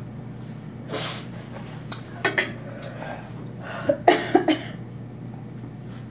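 A person coughing in bursts, with a short run of coughs a couple of seconds in and a louder run of several coughs about four seconds in. The throat is irritated by very hot chili sauce.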